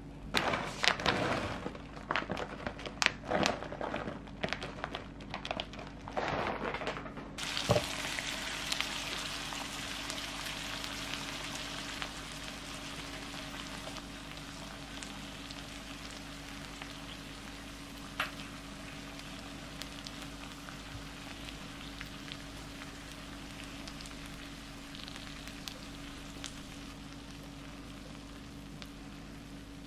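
Fried rice sizzling on a hot griddle pan. For the first seven seconds or so a metal spoon scrapes and taps the pan in quick, sharp strokes. After that there is a steady sizzle that slowly fades, with one more tap about 18 seconds in.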